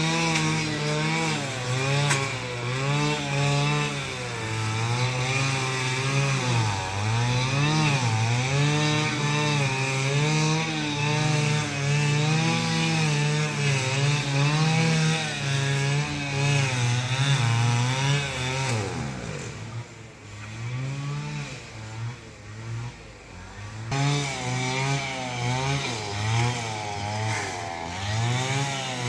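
Small petrol engine of a handheld cutting tool running at high revs under changing load, its pitch wavering up and down as it cuts. About two-thirds of the way through it winds down to a low idle for a few seconds, then revs up again.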